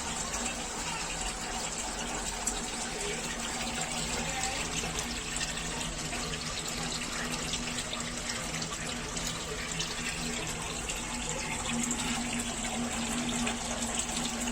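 Water gushing steadily through an outdoor household water filter during a backwash, with a steady low hum underneath.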